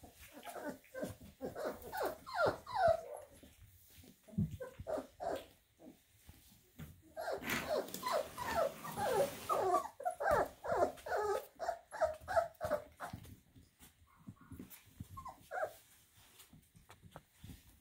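A litter of four-week-old puppies whining and yipping, many short high calls overlapping in two busy stretches with a quieter gap between them.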